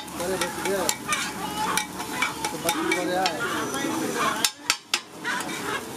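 Metal spatula scraping and clicking against a flat iron tawa as fish egg bhurji is stirred and chopped, over steady sizzling oil with fish frying alongside. The scraping and sizzling break off briefly about four and a half seconds in.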